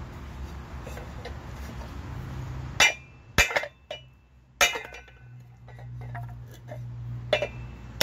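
Steel claw hammer tapping on a metal part in the hub of a V-belt pulley to drive it back in: four sharp metallic strikes with a brief ring, irregularly spaced about a second or more apart, starting about three seconds in. Before the first strike there is only a low steady background rumble.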